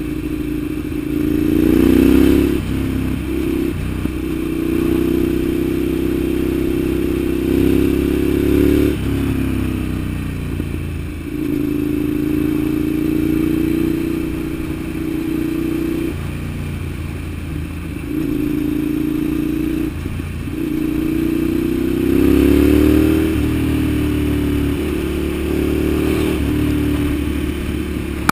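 Ducati Monster 795's air-cooled L-twin engine running under way. Its pitch climbs several times and drops sharply each time, as the throttle is opened and closed or a gear is changed.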